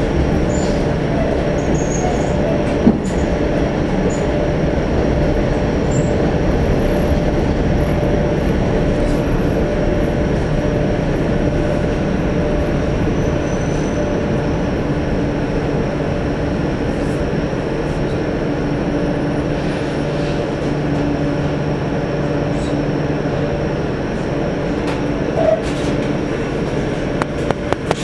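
Suburban electric train heard from inside the carriage while running: a steady rumble of wheels on rail with a faint motor hum. There is one sharp click about three seconds in and a few more near the end.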